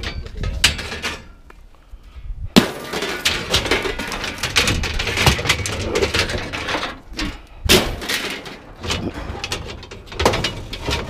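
Scrap metal and appliance parts clanking, banging and scraping as they are pulled out of a pickup truck bed and thrown down, in an irregular run of knocks with two louder bangs, one about a quarter of the way in and one past the middle.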